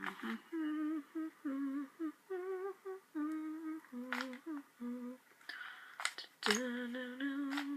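A person humming a tune: a string of short held notes stepping up and down in pitch, with a few sharp clicks about 4 and 6.5 seconds in.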